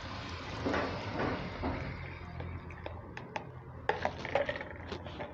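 Metal spoon stirring and scraping in a plastic bowl of dissolved yeast water, followed by a few light clicks and knocks from the spoon and bowls about three to four and a half seconds in, as the liquid is poured onto the flour.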